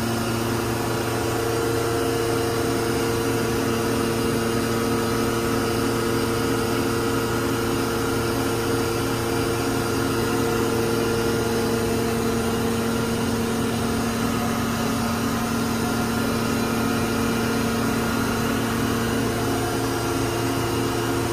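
A 1997 Mazak FF-510 horizontal machining center running under power: a steady mechanical hum made of several held tones, with a higher tone coming in about a second and a half in.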